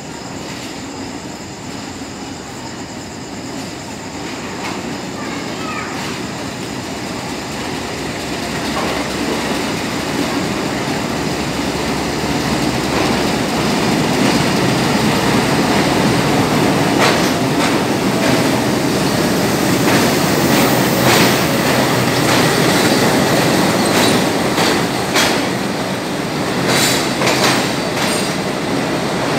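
Khyber Mail passenger train pulling into the station: the locomotive's rumble grows steadily louder over the first half as it approaches. Then the coaches roll past with a run of sharp wheel clatter near the end.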